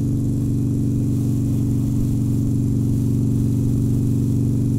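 Harley-Davidson Sportster Forty-Eight Special's air-cooled V-twin engine running at a steady cruise, a constant low drone that holds the same pitch throughout.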